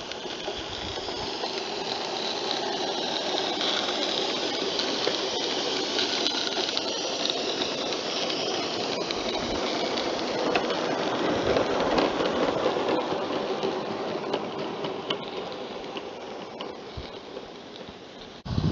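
Live-steam garden-scale locomotive hauling coaches past: steam exhaust hissing, with light clicks from the train on the track. It grows louder to a peak about twelve seconds in, then fades as it moves away.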